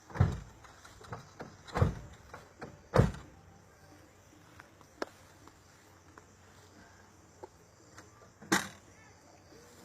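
Four heavy thumps, at the start, about two and three seconds in, and near the end, with light clicks and knocks between: panels and parts of a car-trunk sound system being handled and fitted.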